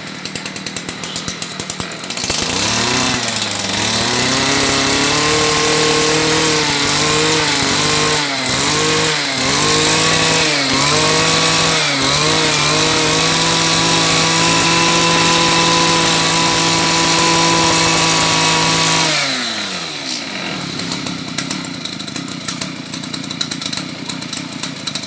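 Echo 260 backpack brush cutter's two-stroke engine idling with rapid popping, then revved up about two seconds in and held at high speed, with a few brief throttle dips. Near the end it drops back to a popping idle.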